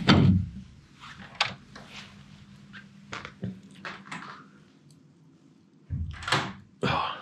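A wooden hotel-room door thumps as it is pushed through, followed by scattered light clicks and knocks of movement in a small room. A faint steady hum runs under them for the first few seconds, and two louder muffled noises come near the end.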